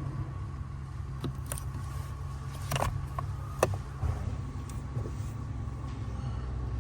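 Irregular sharp knocks and clunks from a Hyundai's steering column over the car's steady low hum, about half a dozen, the loudest a few seconds in. The speaker puts the knocking down to the MDPS (electric power steering) coupler.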